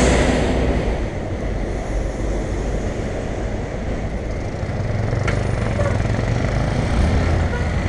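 Helmet-camera microphone on a moving bicycle picking up wind rumble and city traffic, with motorcycles running just ahead. A louder rush at the start dies down within about a second.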